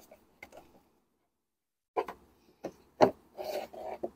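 2005 Porsche Cayenne's plastic engine air box cover being worked loose and lifted open: a few light plastic clicks, a second of dead silence, then a sharp plastic knock about three seconds in followed by plastic rubbing and scraping.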